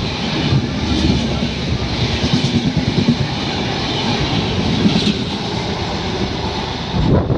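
Indian Railways train running past on the track, a steady rumble of wheels and coaches over the rails.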